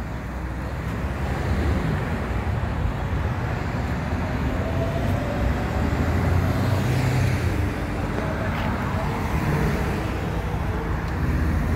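Steady road traffic: cars driving past on a multi-lane road, tyre and engine noise rising and falling as each one goes by.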